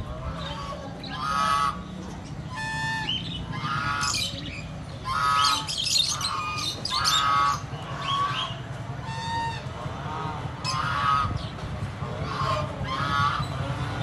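White domestic geese honking in a wire cage: many short calls in quick succession, some overlapping, over a steady low background rumble.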